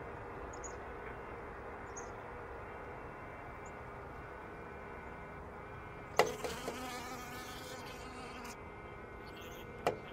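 Honeybees humming and buzzing inside a hive, a steady hum with several pitch lines from a colony that has come through the winter. A sharp click about six seconds in and another near the end.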